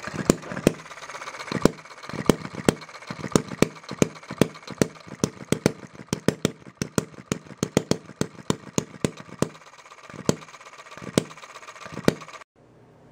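Quarter-scale single-cylinder hit-and-miss engine (Philip Duclos design, 1-inch bore and stroke) running: sharp firing pops at irregular intervals with a light mechanical clatter between them as it coasts, the hits coming closer together for a few seconds midway. The sound cuts off abruptly near the end.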